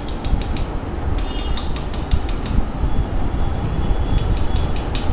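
TVS Apache RTR 160 4V engine running, with a fast, even tappet ticking from the valve train that comes in runs: the tappet noise from wrongly set valve clearance that the adjustment is meant to fix.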